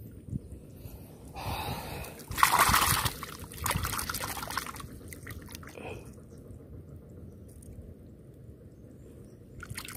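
Water splashing and dripping in several short bursts, the loudest about two and a half seconds in, then a quiet stretch before another brief splash near the end.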